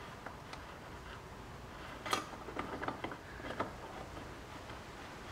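Faint scattered clicks and ticks, a sharper cluster about two seconds in, from probing the airbag release slots at the back of a C6 Corvette steering wheel to unlatch the airbag.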